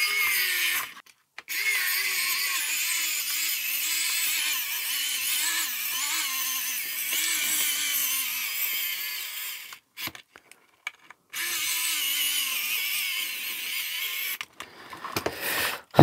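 Wowstick electric precision screwdriver running as it drives small screws into a plastic case, its motor whine wavering in pitch as the load changes. It runs in three spells: a short one at the start, a long one of about eight seconds, and another of about three seconds after a short pause.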